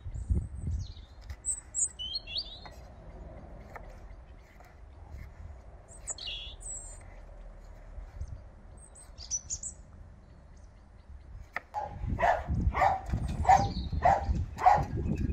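Small birds chirping now and then over a low rumble. Near the end a louder run of short, sharp, evenly spaced sounds, about two a second, takes over.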